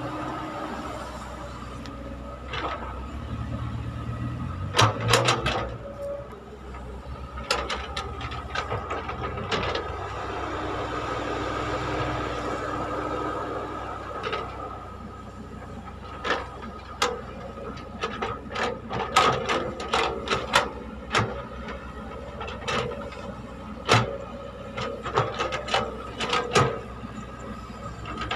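Caterpillar tracked hydraulic excavator working: its diesel engine runs steadily under a thin, steady high whine, swelling for a few seconds as the machine swings back from the truck. From about halfway on come many sharp metal clanks and knocks as the bucket digs into the trench.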